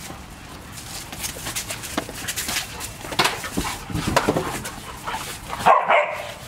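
Dogs playing together, with scuffling and a few short barks and whines. The loudest is one sharp bark near the end.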